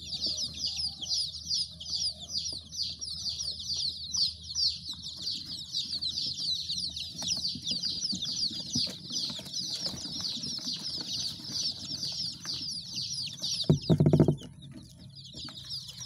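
A crowd of brooding desi chicks peeping without pause, many high-pitched falling peeps overlapping. About fourteen seconds in, a brief loud low buzz cuts in, and the peeping thins for a moment after it.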